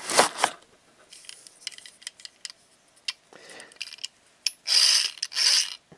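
Handling noise from a steel-geared 1/16 RC tank gearbox being pulled out of its foam packaging insert and turned in the hand: light clicks and rubbing, with two louder rustling noises near the end.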